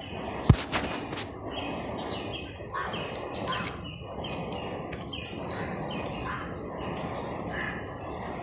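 Small birds chirping over and over in quick, short calls, with a single sharp knock about half a second in.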